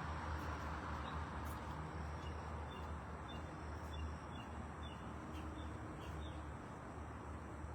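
A small bird chirping repeatedly, short high notes about twice a second, over a steady low rumble and hiss of outdoor background noise.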